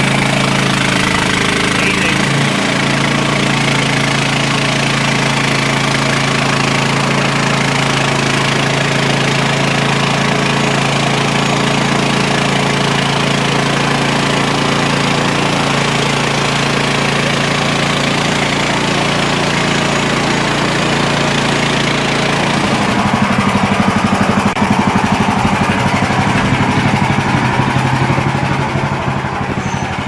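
Engine of a MechMaxx portable band sawmill running steadily at speed. About three-quarters of the way through, its sound turns rougher and a little louder.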